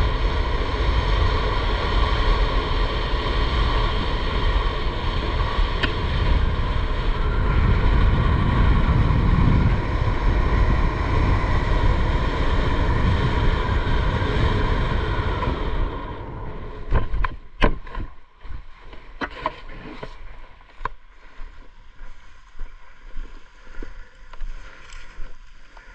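Wind rushing over a body-mounted camera's microphone during a parachute canopy descent. It drops away abruptly about 16 seconds in at landing. After that come a series of short knocks and rustles as the skydiver lands and the canopy settles on the grass.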